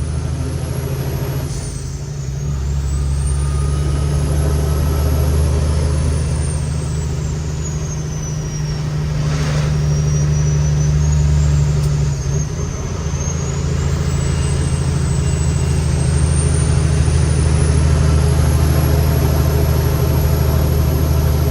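Cummins X15 diesel of a loaded Kenworth T800 truck pulling hard, heard from the cab, with a high whistle that rises and falls over the engine's deep running note. The engine note dips briefly about two seconds in and again about twelve seconds in, and a short hiss comes about nine and a half seconds in.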